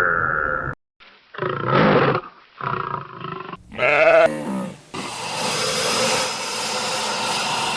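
Animal calls: several short separate calls one after another, then one long, rough call lasting about three seconds.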